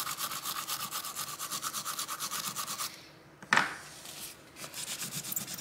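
A toothbrush scrubs quick back-and-forth strokes over a laptop circuit board's corroded flex-cable connector, wet with isopropyl alcohol, to brush off the corrosion. The scrubbing stops about three seconds in. A brief knock follows, then soft rustling of a paper tissue.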